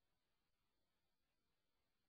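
Near silence: only the faint, steady hiss of the recording's noise floor.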